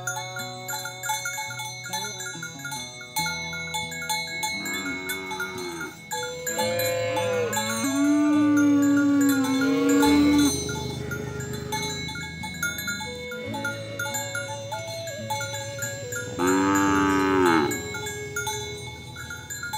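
Cattle mooing: a short call about five seconds in, a long drawn-out moo from about seven to ten seconds in, and another moo near the end. A light mallet-percussion tune plays underneath.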